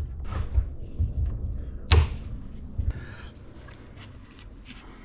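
One-handed bar clamp being fitted and ratcheted onto a wooden door frame on a wooden workbench: a few low knocks and a sharp clack about two seconds in, then quieter small clicks of handling.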